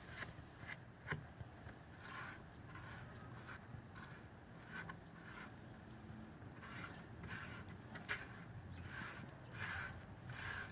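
Paintbrush stroking acrylic paint onto wood: a series of soft, short scratchy swishes, repeated irregularly.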